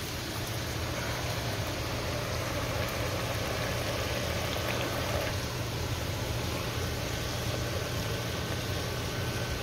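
Risotto simmering and bubbling in a pan as it is stirred with a spatula: a steady hiss of cooking over a low, steady hum.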